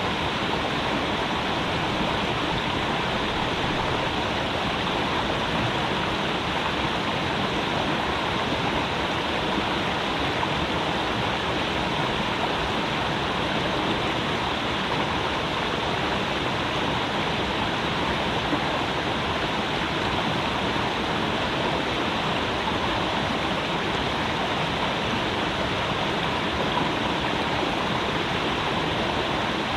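Creek water flowing and splashing in a steady, even rush.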